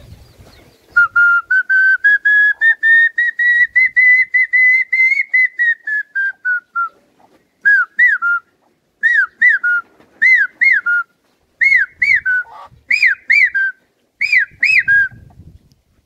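A man whistling an imitation of the common hawk cuckoo's call. First comes a fast run of short notes, several a second, that climb in pitch and then sink. From about halfway it changes to six pairs of notes, each note rising and falling, the pairs climbing in pitch.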